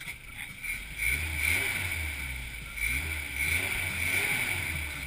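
Off-road truck's engine running as it crawls along a muddy, overgrown trail, rising and falling in pitch a few times with the throttle, getting louder about a second in.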